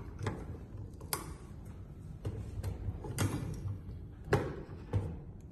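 Light clicks and knocks, about seven of them at uneven intervals, from handling and adjusting the head of a manual crimping machine. The sharpest knock comes about four seconds in.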